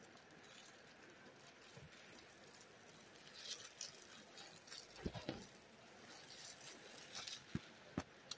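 A baby gumming and munching a snack stick: faint wet smacks and small clicks, with a few sharp taps in the second half.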